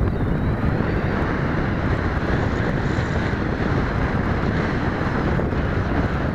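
Wind buffeting the microphone: a steady, loud rumbling rush.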